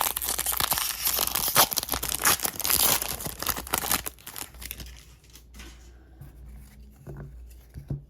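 Wrapper of a 2022 Topps Series 1 baseball card pack being torn open and crinkled, loud for about four seconds, then fading to a few light handling clicks.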